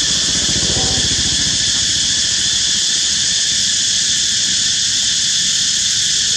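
Steady, loud, high-pitched insect chorus. A motor vehicle's engine passes in the first two seconds, loudest about a second in, then fades.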